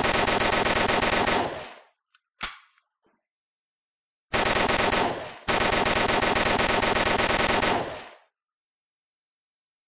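MAT-49 submachine gun firing on full automatic. A long burst ends about a second and a half in, followed by one short sharp report. After a pause come a short burst and then a longer one, back to back, which stop about eight seconds in.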